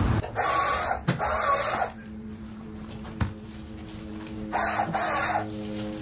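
Leafy brush rustling and scraping in bursts as cut branches are dragged through the undergrowth. A low, steady hum comes in near the end.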